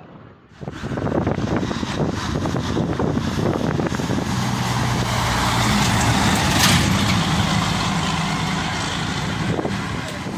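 A diesel dump truck, a cab-over tractor, passing close by with its engine running under load, with a brief hiss about two-thirds of the way through.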